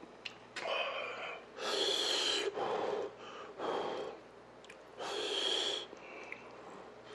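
A person slurping hot noodles: a series of loud, airy slurps, the strongest a little under two seconds in and again about five seconds in, with quieter pauses between.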